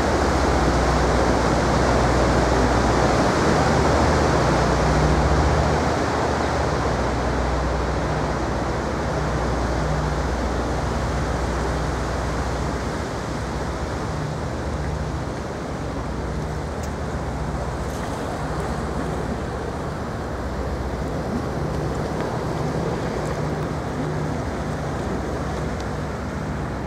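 Sightseeing boat's engine drone with water rushing along the hull, heard on deck: a steady low hum under a broad wash of noise, somewhat louder in the first half.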